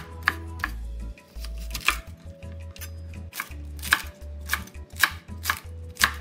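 Chinese cleaver chopping cabbage into small pieces on a wooden cutting board: a steady run of sharp knocks, about two a second.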